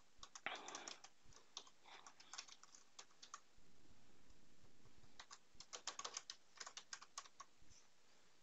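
Faint typing on a computer keyboard: a run of quick keystrokes over the first three seconds or so, a pause, then another run from about five to seven seconds in.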